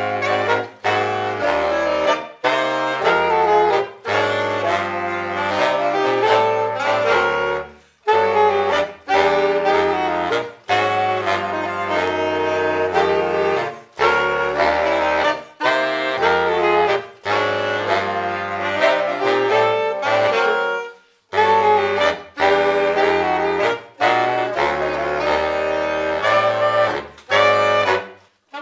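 Saxophone quartet playing a jazz piece together in close harmony, short detached notes over a low part that steps from note to note. The phrases break off in brief pauses about every six to seven seconds.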